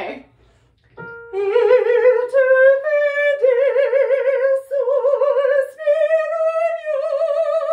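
A woman singing a classical vocal phrase, several held notes with wide, even vibrato that step slightly upward, starting about a second in.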